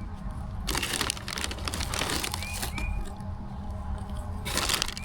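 Plastic food packaging crinkling and rustling as it is handled and opened, in two spells, with a few faint short chirps behind.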